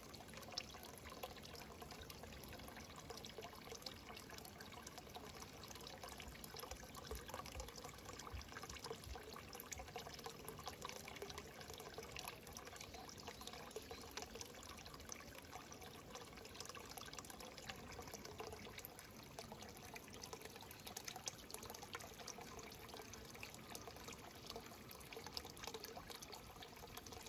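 Water pouring steadily from a bamboo spout into a small pond: a faint, constant trickle.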